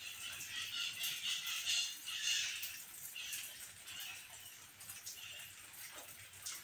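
Birds chirping and calling in irregular short bursts, a steady background chatter.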